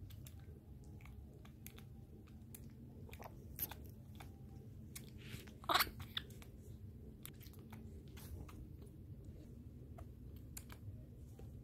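Baby vervet monkey suckling on a rubber bottle teat: soft, irregular sucking clicks and smacks, with one louder smack about halfway through.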